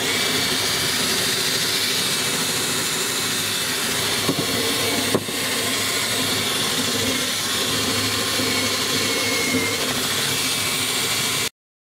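Cordless drill spinning a wire brush against a cast iron griddle, scrubbing off flash rust and baked-on residue down to bare iron: a steady whirring scrape, with two brief knocks about four and five seconds in. It cuts off abruptly near the end.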